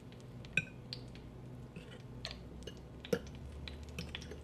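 A metal fork tapping and scraping lightly against a ceramic bowl and plate while pieces are coated in flour: scattered soft clicks, two a little sharper about half a second in and about three seconds in.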